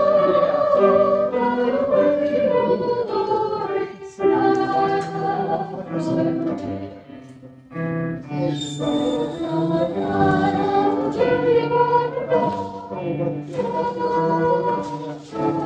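Church congregation singing a hymn together, phrase by phrase, with short breaks between lines.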